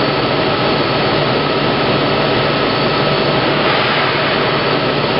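Plate rolling machine running, its rolls turning a steel sheet being bent into a cylinder: a steady mechanical noise with a few faint steady tones.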